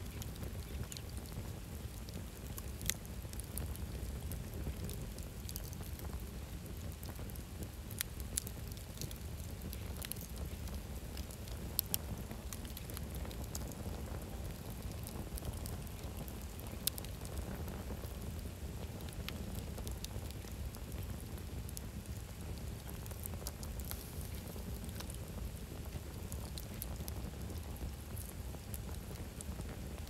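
Wood campfire burning: a steady low rush under scattered sharp crackles and pops, the loudest pair about twelve seconds in.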